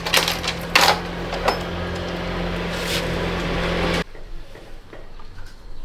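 A steady mechanical hum from a running motor or engine, with a few sharp metal clinks over the first second and a half; the hum cuts off suddenly about four seconds in.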